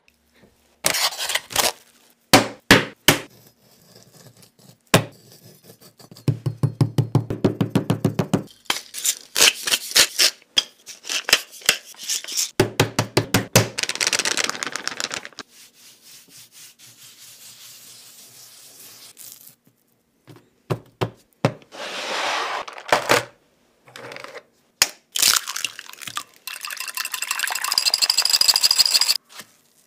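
A run of close-up food-prep sounds: bursts of rapid knocks and taps, then a hiss of flour sprinkled onto raw pork slices, and near the end eggs beaten fast in a glass bowl, with quick clicks against the glass.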